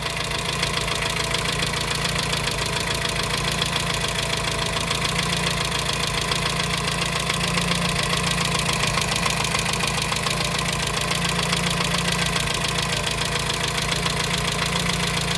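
Dacia 1310's four-cylinder petrol engine idling steadily, with a light knock that is still there after new crankshaft bearings; the owner does not know where it comes from.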